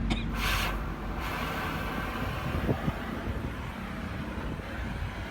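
Steady low rumble of a running vehicle engine, with a short burst of hiss about half a second in.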